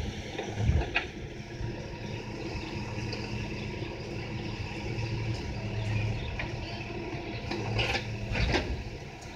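Backhoe loader's diesel engine running steadily, with a few short knocks about a second in and near the end.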